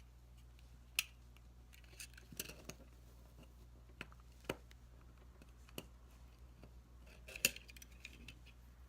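Scattered sharp clicks and taps of Glock 43 magazine parts, polymer and spring steel, being handled and fitted together, with the loudest click near the end.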